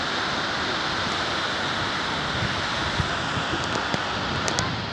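Steady wash of small waves breaking on a sandy beach, with wind on the microphone and a few faint clicks in the second half.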